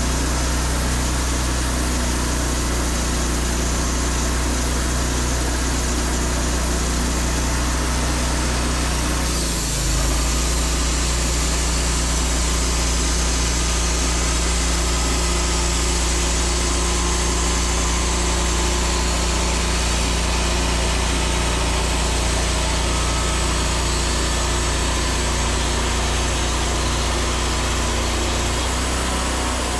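Wood-Mizer portable sawmill's engine running steadily, with a brief change in its pitch about ten seconds in.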